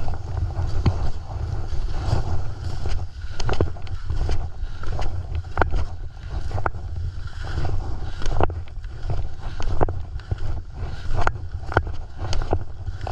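Wind buffeting an action camera's microphone during a fast ski descent, a heavy, fluttering rumble. Over it come frequent short scrapes and clatters of ski edges on snow.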